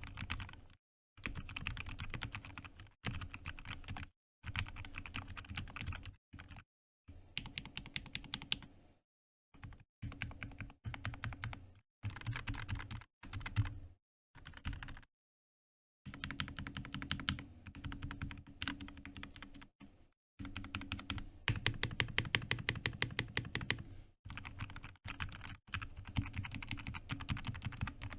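Typing on a Keychron C1 mechanical keyboard fitted with pre-lubed Akko Jelly Black linear switches and PBT keycaps: fast runs of keystrokes in bursts of a few seconds, broken by short pauses. The deeper, louder thocks among them include the spacebar, which is the loudest key on the board.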